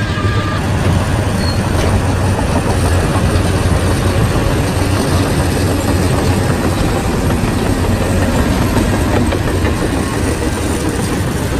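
Shantui bulldozer's diesel engine running steadily with a deep, even drone. A reversing alarm beeps faintly at the very start and stops.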